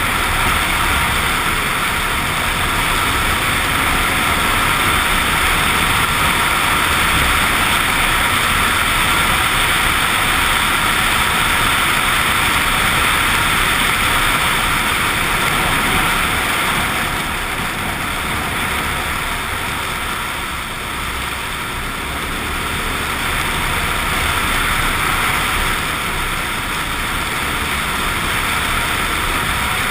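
Suzuki XF650 Freewind single-cylinder motorcycle being ridden, its engine running under a steady rush of wind and road noise. The noise eases a little a bit past halfway, then builds again.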